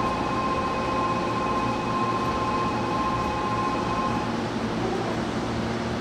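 Hankyu 8000 series electric train standing at the platform with its doors open, its onboard equipment giving a steady hum with a whine of several steady tones that cuts off about four seconds in.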